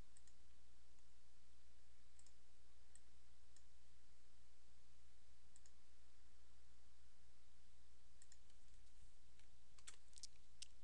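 Faint, scattered clicks of a computer mouse, with a quicker run of clicks near the end, over a steady low electrical hum.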